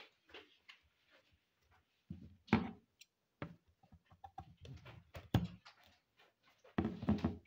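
Handling sounds of craft tools on a table: light taps with three louder dull knocks, about a third of the way in, past two thirds, and near the end.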